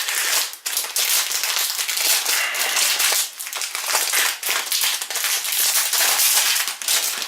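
Plastic bag of basmati rice crinkling as it is handled and opened: a dense, continuous run of small crackles.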